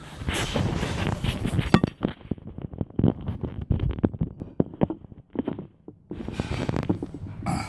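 Handling noise on a phone's microphone as the phone is gripped and set in place: rustling and rubbing, with a run of sharp clicks and knocks in the middle.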